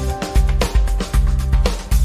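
Background music with a steady beat over a bass line and sustained notes.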